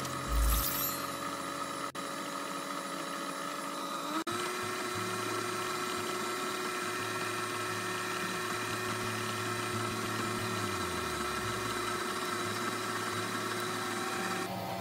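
Stand mixer's electric motor running steadily while its dough hook kneads dough in a metal bowl. The motor's pitch steps up about four seconds in, and there is a low thump just after the start.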